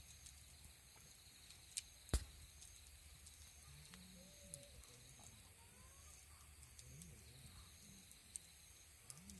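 Campfire burning with a few sharp pops of the wood, the loudest about two seconds in, over a steady faint background; faint low voices come in during the second half.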